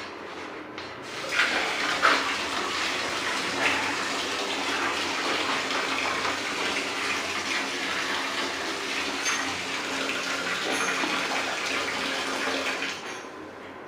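Water running hard from a tap or open pipe, starting abruptly about a second in and cutting off near the end.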